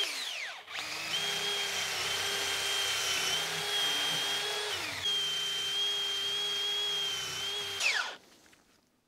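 Cordless DeWalt drill spinning a wire cup brush against the outside of a cast brake caliper held in a vise, a steady motor whine. The drill winds down right at the start and spins back up about a second in, dips briefly near five seconds, and stops about eight seconds in.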